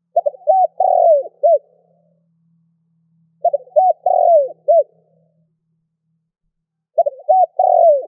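Spotted dove cooing: three phrases about three and a half seconds apart, each a few short coos, a longer note and a last separate coo.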